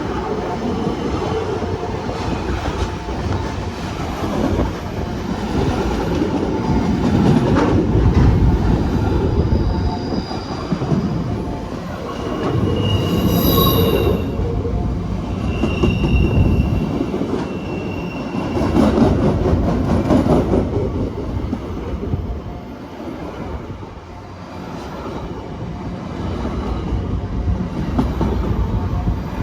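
Empty freight wagons of an MRS train rolling past, with a steady rumble of wheels on rail. High-pitched wheel squeal rings out for a few seconds around the middle.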